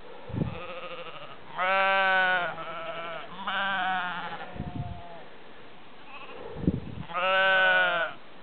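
Sheep bleating: three loud, long, wavering bleats of about a second each, with a fainter call between the first two. A few dull low thumps fall between the calls.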